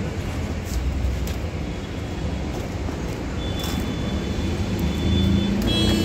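Low steady rumble of outdoor background noise, with a few light rattles from a wire birdcage being handled and a thin high whistling tone about halfway through.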